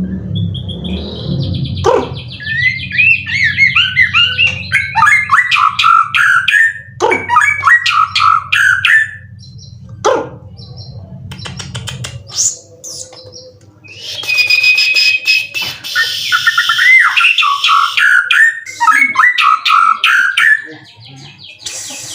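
Caged white-rumped shama (murai batu) singing: loud bursts of rapid, varied chirping phrases with quick rising and falling notes, broken by a few sharp clicks, with a dense, shrill trilling stretch in the second half. A low hum underneath stops about halfway.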